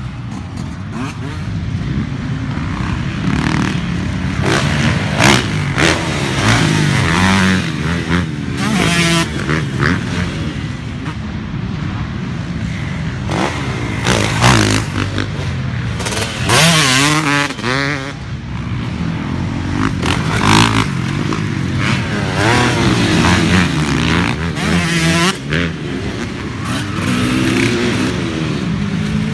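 Dirt bike engines revving and passing on a motocross track, one bike after another, the pitch rising and falling sharply with each throttle blip.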